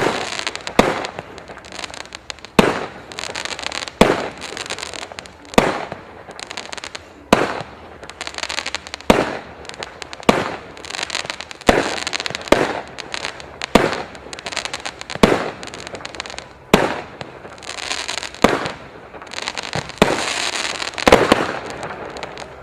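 The 'Exkalibur' consumer firework cake firing its shots one after another, a sharp bang about once a second, each followed by crackling. Near the end comes a denser run of crackle and bangs, then it stops.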